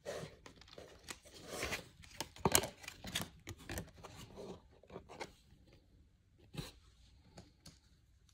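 Glossy baseball trading cards being handled: slid against one another, shuffled and set down on a mat, giving a string of short swishes and light taps, the loudest about two and a half seconds in.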